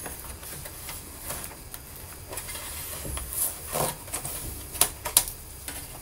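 Small screwdriver taking the bottom-case screws out of a MacBook Pro: faint scraping and scattered light clicks of metal on metal, with a few sharper clicks in the second half.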